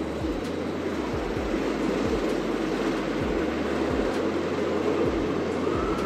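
Rocky Mountain Construction hybrid roller coaster train running along its steel track during a test run, a steady rumbling roar that swells a little toward the end.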